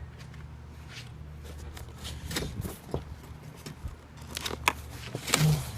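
Cardboard box being cut and opened by hand: scattered clicks, scrapes and rustles of cardboard and packing, busier in the second half, over a steady low hum.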